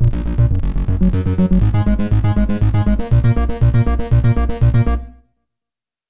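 UVI Falcon Sunbox software synthesizer playing its sequenced bass preset 'Sun Bass Seq 2': a fast, repeating synth bass pattern at 120 BPM that dies away and stops about five seconds in.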